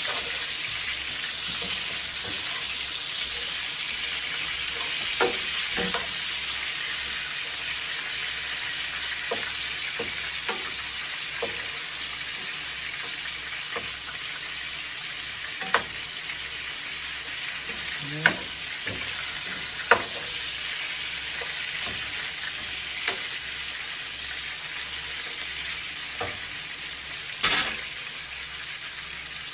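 Pot of brown stew chicken back cooking with a steady high hiss, with a spoon knocking against the pot now and then as the gravy is stirred.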